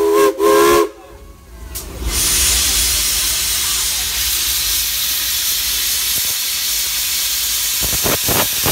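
Steam locomotive whistle giving two short toots right at the start. After a brief lull, a loud steady hiss of escaping steam begins about two seconds in and carries on, with a few short puffs near the end.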